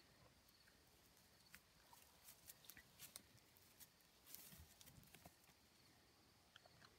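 Near silence, with faint scattered clicks and a brief soft rustle about four and a half seconds in.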